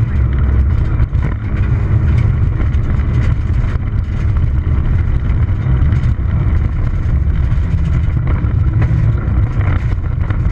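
Peugeot 206 XS rally car heard from inside the cabin at speed on a gravel stage: the engine running hard under a loud, steady rumble of tyres and road noise, with gravel knocking against the car.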